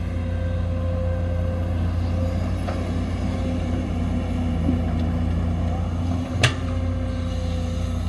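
Heavy construction machinery engine running steadily with a low hum. A single sharp knock comes about six and a half seconds in, with a couple of faint clicks before it.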